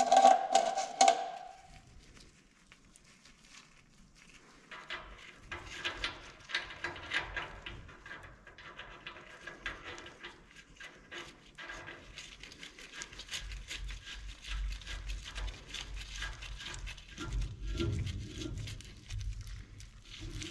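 Hand reassembly of a trailer wheel hub on its axle spindle: a few sharp metallic clinks with a short ring in the first second, then a long run of small clicks, scrapes and rattles as bearing parts, the washer and the nut are worked into the greased hub by hand.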